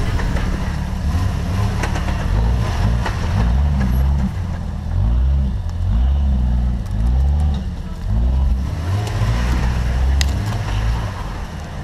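Jeep Wrangler engine running at low trail speed, its pitch rising and falling with the throttle as it crawls over rough ground. A couple of sharp knocks come through along the way.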